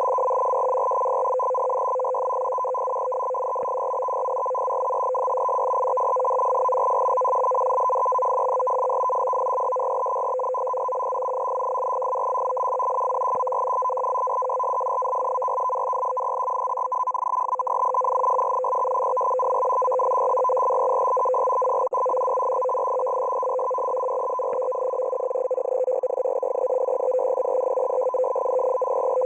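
Russian M42b shortwave data transmission received on 14380 kHz: a continuous two-tone keyed data signal with tones near 500 Hz and 1 kHz, slowly fading up and down.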